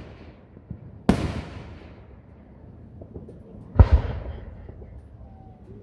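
Aerial fireworks shells bursting: a loud bang about a second in and a louder one near four seconds, each trailing off in a long fading rumble.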